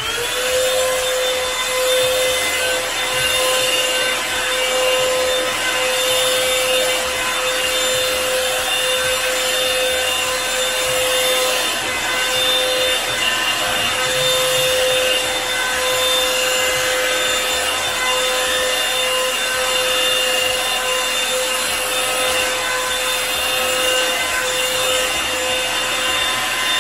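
Revlon One-Step hair dryer brush running: a steady motor whine over a rush of blown air. It spins up as it is switched on at the start and winds down as it is switched off at the end.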